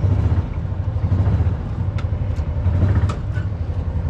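Gasoline utility vehicle's engine idling with a steady low hum, with a few faint clicks about halfway through.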